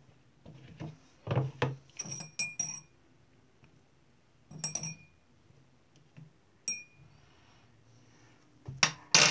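A metal spoon clinking against a glass and a bowl while a slime mixture of glue and borax water is stirred: softer knocks and about four sharp clinks that ring briefly, with a louder clatter near the end.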